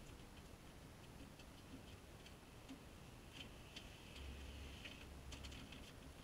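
Near silence with faint scattered clicks and a brief light rustle about halfway through: gloved hands working the plastic radiator fan shroud and its clip out of the engine bay.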